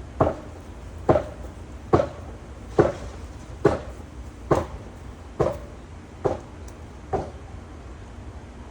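A steady series of hard strikes, a little more than one a second, nine in all, each with a short ringing tail. The series stops about two-thirds of the way through. The rhythm is that of a worker chopping or hammering at the tree.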